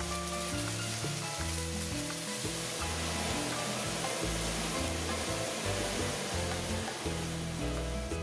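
Oil sizzling steadily in a steel pot of frying onion and dried guajillo and pasilla chiles as fresh orange juice is squeezed in through a strainer, under background music.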